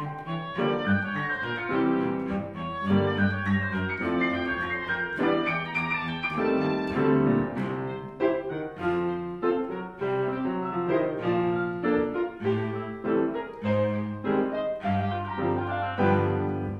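Chamber trio of cello, oboe and grand piano playing a fugue that mixes Baroque counterpoint with jazz and blues elements, with piano notes struck throughout under sustained cello lines.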